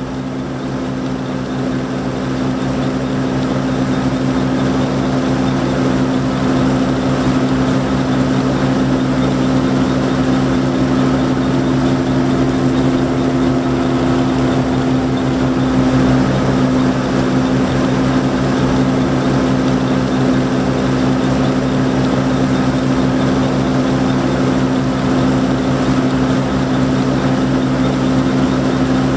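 John Deere 4425 combine's 359 cubic inch six-cylinder diesel engine running steadily while harvesting wheat, a constant drone that swells slightly over the first few seconds.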